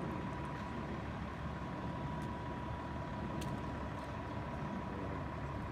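Emergency vehicles' engines idling steadily: an even low rumble with a faint steady whine above it.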